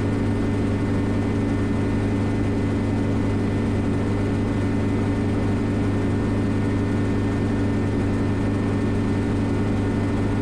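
Steady cabin drone of a Schweizer 300CB helicopter in cruise flight: its piston engine and rotors running at a constant pitch and level.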